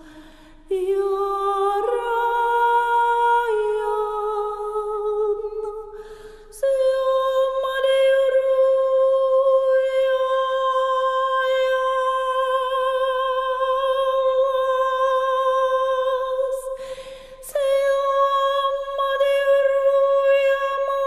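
A woman's voice singing long, wordless held notes in a toning or humming style, with a slight vibrato. The pitch steps up a few times in the first six seconds, then one higher note is held for long stretches, broken by short breath pauses.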